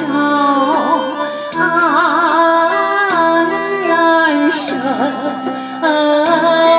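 Music: a melody with a wavering, sliding lead line over sustained accompaniment, in phrases that break off and restart every second or two.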